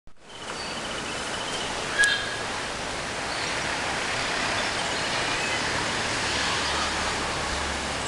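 Steady outdoor noise, an even hiss, with a few faint high chirps early on and one sharp click about two seconds in.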